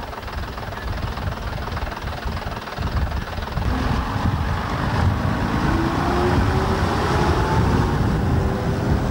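Vintage half-cab double-decker bus pulling away and driving past, its engine a heavy low rumble. From about a third of the way in, a rising whine climbs steadily in pitch as the bus accelerates through the gear.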